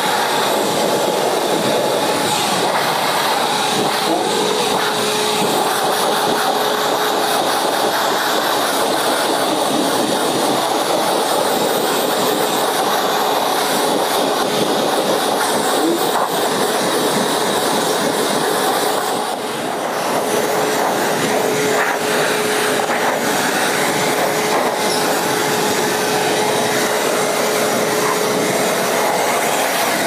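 Canister wet/dry shop vacuum running steadily as a blower, air rushing from its hose nozzle through a goat's long coat, with a steady whine over the rush. The sound dips briefly about two-thirds of the way through.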